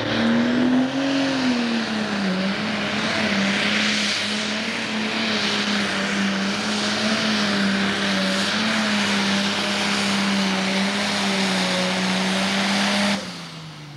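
Pro Stock pulling tractor's turbocharged diesel engine running flat out under load while dragging the weight-transfer sled, a loud steady drone with a brief rise in pitch about a second in. Near the end the engine note drops off suddenly and falls in pitch as the pull ends.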